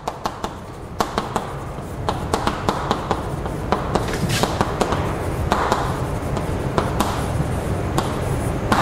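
Chalk writing on a blackboard: a run of sharp taps as the chalk strikes the board, with scratchy strokes between them as the letters are drawn.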